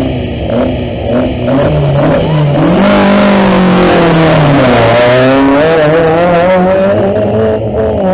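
Rally car engine passing close at speed. It grows loud about three seconds in, its pitch sliding down and then climbing again while at its loudest, then eases off as the car moves away.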